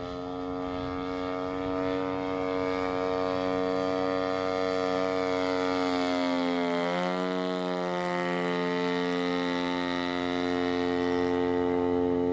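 Giant-scale RC biplane's EME70 petrol engine and propeller droning in flight. It grows louder as the plane closes in, and the pitch drops as it passes by about seven seconds in.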